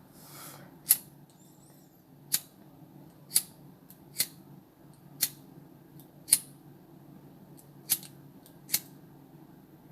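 A handheld lighter clicking repeatedly, about eight sharp clicks roughly a second apart, as it is struck over and over.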